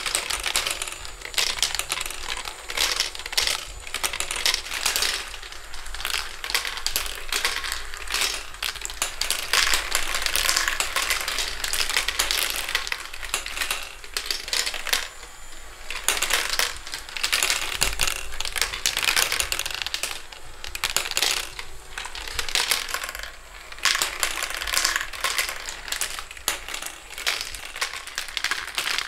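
Marbles rolling and clattering through a plastic marble run: a dense, continuous rattle of clicks and small knocks as they run along the tracks and drop through the tubes.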